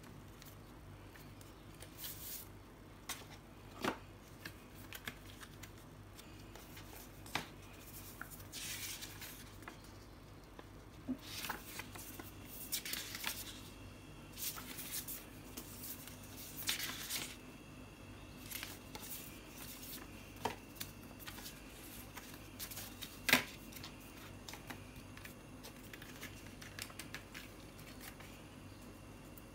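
Paper and cardboard packaging handled by hand: the iPad's paper documents envelope and inner box pieces rustling and sliding in spells, with a few light taps and clicks.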